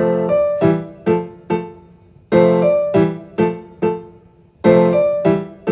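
Background music: a piano or electric-piano figure of struck chords, each fading before the next, in a repeating rhythmic pattern.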